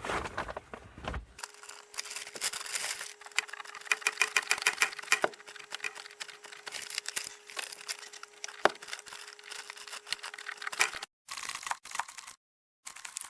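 Bottle jacks being pumped to lift a floor beam: a run of sharp clicks and knocks with the timbers creaking under the load, the sound cutting out in short gaps near the end.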